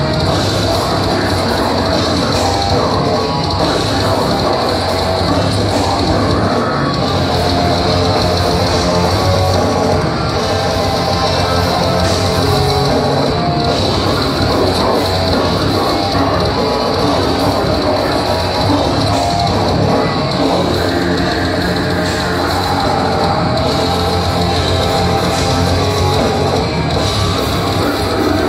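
Death metal band playing live: heavily distorted electric guitars and drum kit, loud and unbroken throughout.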